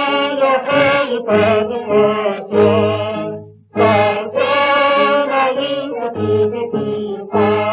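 Group of voices singing a 1932 Chinese patriotic march song, played from a Pathé shellac 78 rpm record on a wind-up gramophone, its sound thin with no high treble. The phrases break off briefly about three and a half seconds in, then the singing resumes.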